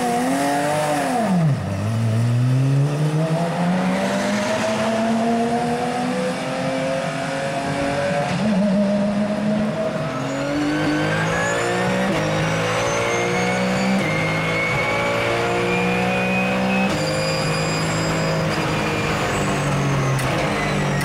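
Porsche 997 GT3 Cup's flat-six racing engine: a few quick blips of the throttle at a standstill, then pulling away with the pitch rising, and later accelerating through the gears, the pitch climbing and stepping down at each shift. A high whine rises and falls with the engine.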